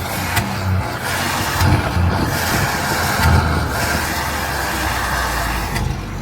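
Loaded truck driving, heard from the cab: the engine runs low under a broad rattling road noise, with a few heavy low thumps about two and three seconds in.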